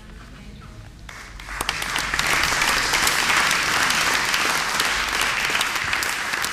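Audience applauding, starting about a second in and quickly building to steady clapping.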